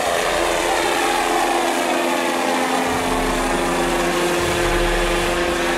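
Scale radio-controlled UH-72 Lakota model helicopter flying past, its engine and rotor running with a steady tone. The rotor's low beat grows stronger about halfway through.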